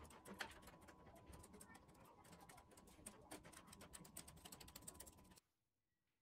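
Faint, rapid clicking and ticking of a steel tape measure being pulled out and handled against a wooden table top, cutting off suddenly about five seconds in.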